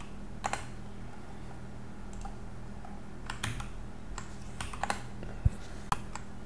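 Scattered computer keyboard keystrokes and mouse clicks, a few at a time, with one louder thump about five and a half seconds in, over a steady low hum.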